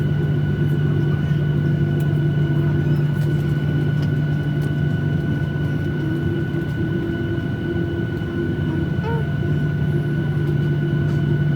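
Cabin noise inside a Boeing 737-800 jet, heard from a passenger seat: the CFM56 engines and airflow make a steady loud drone, with a deep hum and two fainter high tones held throughout.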